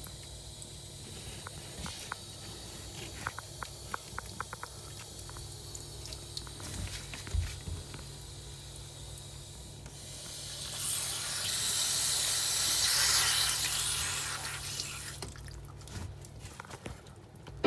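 Scattered clicks and taps of work on plumbing over a steady low hum, then a loud rushing hiss of water through the repaired supply line that swells for a few seconds and fades.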